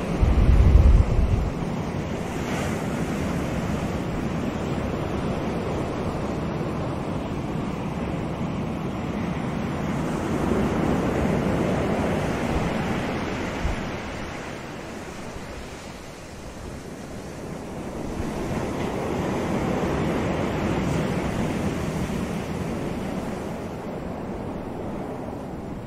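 Ocean surf: small waves breaking and washing up the shore as a steady hiss that swells twice, about ten seconds in and again near twenty seconds. Wind buffets the microphone with a low rumble in the first second or so.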